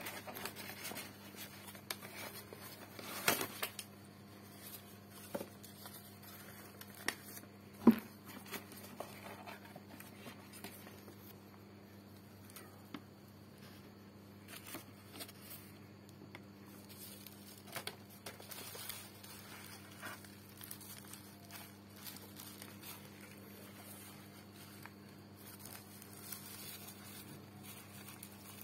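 Hands handling a cardboard box and bubble-wrap packaging: scattered rustling, crinkling and small knocks, with two sharper knocks about three and eight seconds in. Near the end, scissors cut into the bubble wrap. A steady low hum runs underneath.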